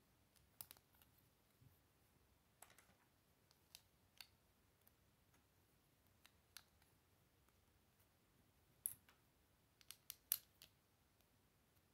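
Plastic Lego bricks clicking as they are pressed and snapped together by hand: scattered faint clicks, with a quick run of sharper ones near the end.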